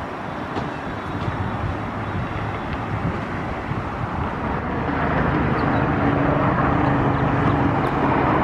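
Outdoor traffic noise with a steady hiss, then about five seconds in a motor vehicle's engine hum grows louder and holds steady at one pitch.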